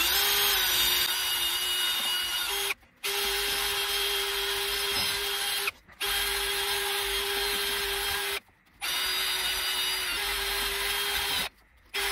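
Cordless drill spinning a wire brush against a rusty wheel hub, scrubbing the rust off: a steady motor whine with the rasp of the bristles on metal. It stops briefly four times and starts again each time.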